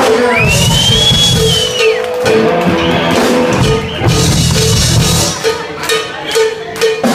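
Rock music with a drum kit and guitar, with a cowbell hit along in a steady beat of about three strokes a second. A high note glides up and back down in the first two seconds.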